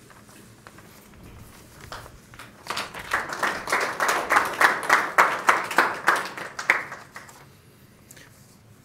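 Audience applauding. A few scattered claps come first, then the clapping builds about two and a half seconds in and dies away after about seven seconds.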